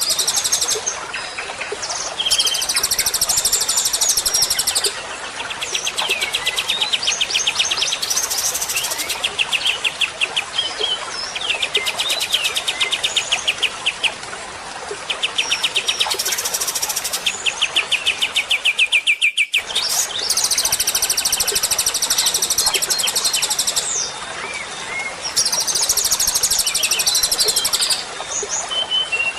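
Recorded songbirds singing continuously, rapid trills of fast repeated notes mixed with high, buzzy chattering phrases, a masteran track of bird song played to teach a caged white-rumped shama new phrases. The sound cuts out for a moment about two-thirds of the way through, like a splice in the recording.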